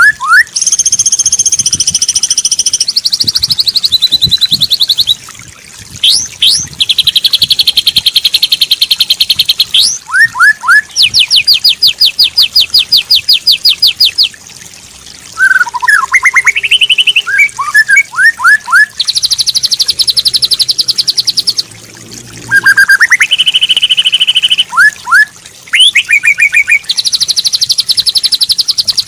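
White-rumped shama (murai batu) singing a loud, varied song of long rapid trills of repeated high notes, broken by quick upsweeping whistles and short chattering phrases.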